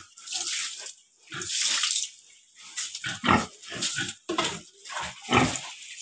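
Water thrown from a mug onto a concrete pen floor, splashing in a series of separate throws, with a pig grunting in between.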